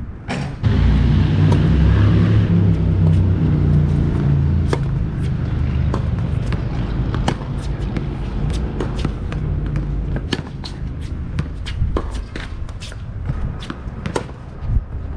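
Sharp taps of tennis balls bouncing and shoes on a hard court, over a loud low rumble that starts suddenly about a second in and slowly eases off.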